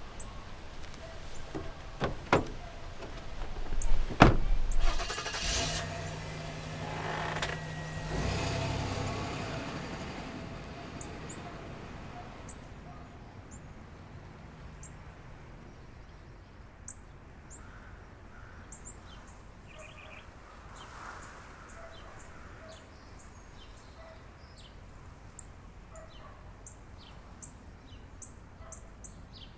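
A car door is knocked twice, then the car's engine starts and runs briefly before the car pulls away, its sound fading within a few seconds. Afterwards only faint outdoor ambience remains, with short high bird chirps.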